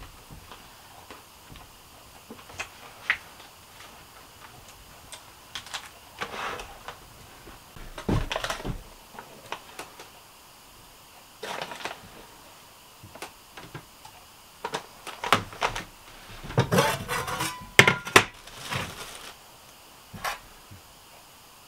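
A spoon clinking against enamel and steel mugs and an enamel dish, with rustling of a coffee packet, as coffee is made by hand. Scattered short clicks, busiest near the end, where one clink rings briefly.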